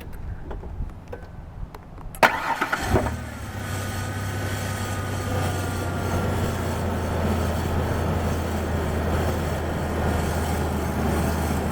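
A few light clicks, then the 1993 Ford Ranger's engine starts about two seconds in and settles straight into a steady, even idle. The rough idle is cured by new upper and lower intake gaskets and new injector O-rings.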